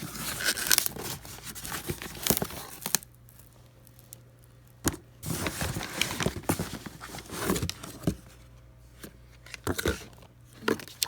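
Packaging being handled: rustling and crinkling with scattered clicks and knocks, busiest for the first few seconds, then in short spurts.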